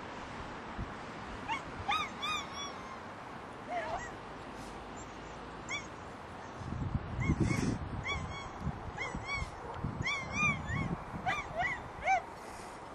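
Short, high, arching animal calls, some in quick runs, scattered through and most frequent in the second half. A low rumble rises briefly in the middle.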